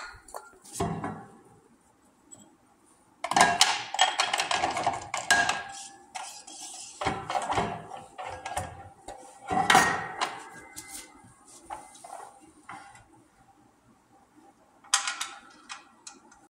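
Metal clanking, scraping and clicking as an International Harvester 1086 tractor's new clutch pressure plate is set onto the flywheel and bolted on. It comes in several bursts, some with a ringing metallic note.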